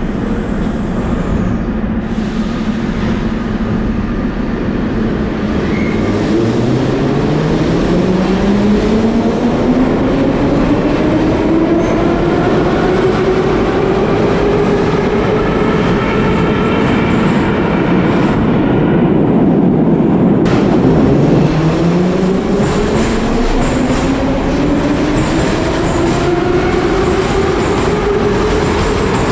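Soviet-built 81-717-type metro train pulling out of the station. Its traction motors whine and climb steadily in pitch as it accelerates, over the rumble and clatter of its wheels on the rails. About two-thirds of the way through, the whine drops sharply and then rises again.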